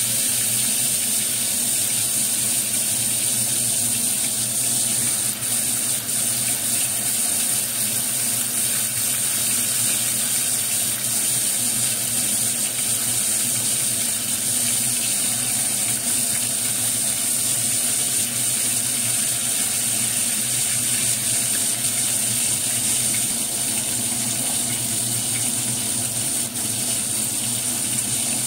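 Pieces of fish deep-frying in a pot of hot oil: a steady sizzle.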